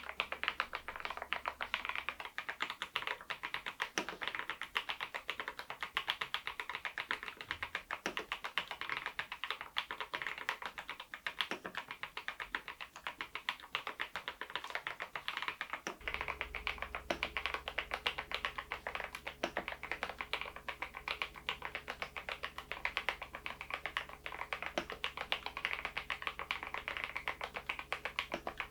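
Machenike K500 PRO mechanical keyboard fitted with Adelie V2 switches being typed on steadily, a fast unbroken stream of keystroke clicks and clacks.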